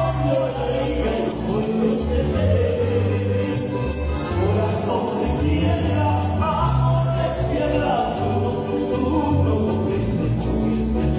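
Live band music: an electric bass and a piano accordion playing, with a singing voice over a steady beat.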